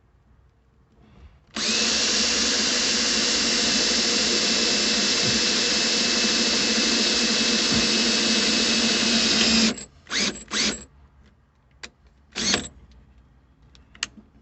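Electric drill boring a pilot hole through the metal of a 1955 Chevy pickup's cab for a seat-belt pop rivet: one steady run of about eight seconds that cuts off suddenly, then a few short blips of the trigger.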